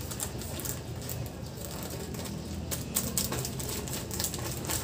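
Irregular small clicks and rustles of a thin plastic fruiting bag crinkling as mushroom spawn is spooned into it with a long metal spoon, over a steady low background hum.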